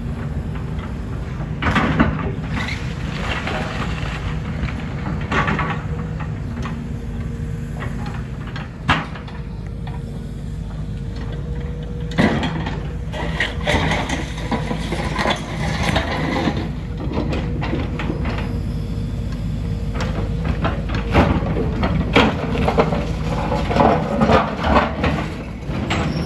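Diesel engine of heavy demolition machinery running steadily, with repeated knocks and clatters of debris.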